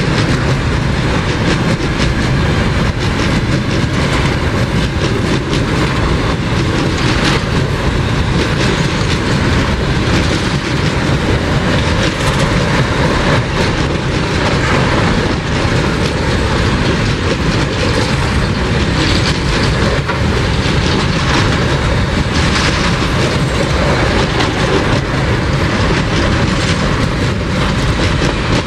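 Wagons of an empty freight train rolling past close by: steady, loud noise of steel wheels on the rails, with the clickety-clack of the wheels running over the rail joints.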